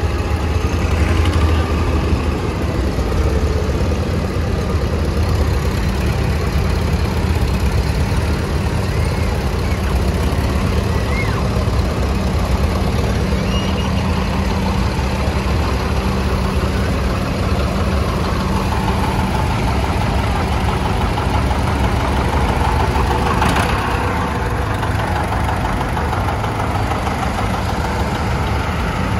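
Several tractor engines running as tractors drive past one after another, a steady low engine drone.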